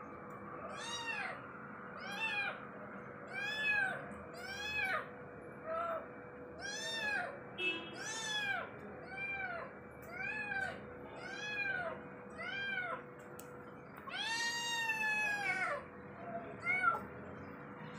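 Young kitten meowing over and over, about a dozen and a half short meows roughly one a second, each rising and then falling in pitch. Near the end comes one longer, drawn-out meow.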